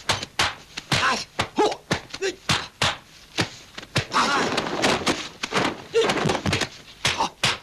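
Dubbed kung fu fight sound effects: a quick run of sharp punch and kick impacts, several a second, with the fighters' short shouts and grunts between them.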